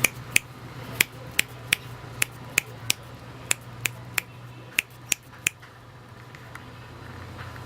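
Sharp clicks, about a dozen at uneven intervals, stopping about five and a half seconds in, over a low steady hum.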